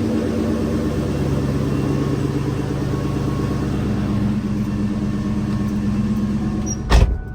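Supercharged 4.6-litre V8 of a 2003 SVT Cobra idling steadily on freshly installed NGK TR6 spark plugs, sounding a little smoother. A loud thump comes near the end.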